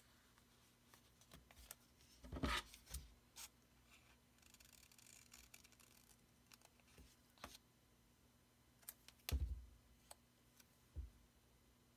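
Scissors snipping a small paper floral sticker, quiet, with light paper rustles and scattered sharp clicks. Two louder thumps stand out, about two and a half and nine and a half seconds in.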